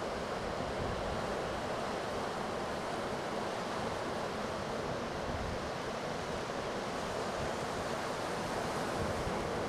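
Heavy storm surf breaking along a rock jetty, a steady wash of waves with no pause, with wind buffeting the microphone underneath.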